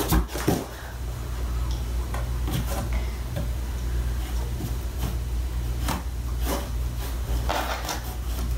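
Hands rummaging in a box, with a couple of sharp knocks at the start and scattered light rustles and clicks after, over a steady low hum.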